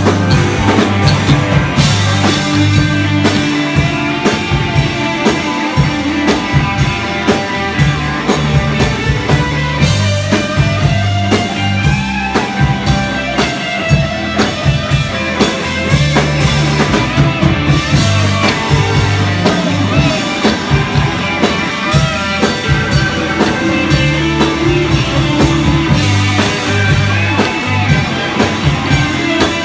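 Live psychedelic rock band playing: electric guitars, electric bass and a drum kit, with a steady drum beat, a pulsing bass line and a guitar line that bends in pitch.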